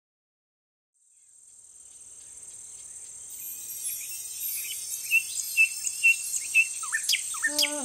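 Nature ambience fades in from silence: a steady, high insect-like chirring with short chirps about twice a second. Music with held notes comes in near the end.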